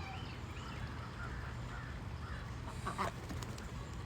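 Domestic waterfowl calling: several short calls, then a louder one about three seconds in, over a low steady rumble.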